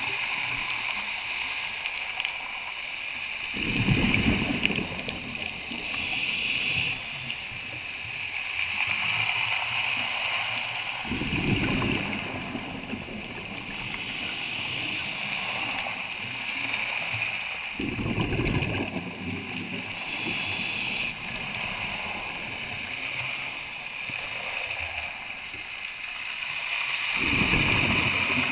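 Scuba diver breathing through a regulator underwater. Each inhalation gives a hiss, and each exhalation a deep rush of bubbles, about every seven seconds, four breaths in all, over a steady background hiss.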